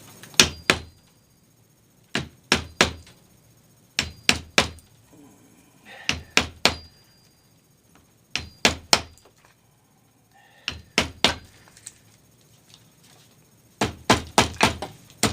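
Hammer blows on wood in groups of two or three about every two seconds, then a quicker run of blows near the end: seating the cane and spline into the groove of a bentwood rocker's seat.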